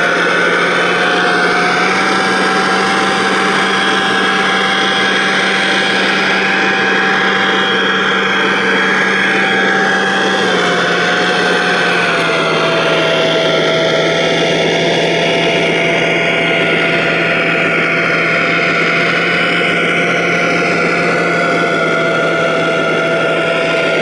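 Steady whine of a radio-controlled construction machine's motor, running at a constant pitch that steps up slightly about two seconds in and drops back down about eleven seconds in.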